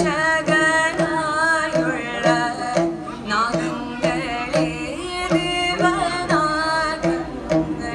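A woman singing Carnatic music with wavering, ornamented held notes, accompanied by a plucked long-necked stringed instrument with a large gourd body, played by the singer herself.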